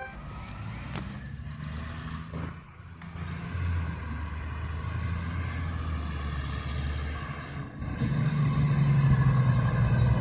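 Fire engine's diesel engine running as the truck approaches, growing clearly louder about eight seconds in as it comes closer.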